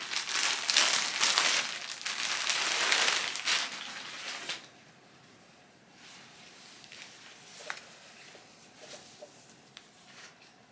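Packaging crinkling and rustling as a newly delivered garment is unwrapped, loud for about four and a half seconds. After that only faint rustles and a few light ticks remain.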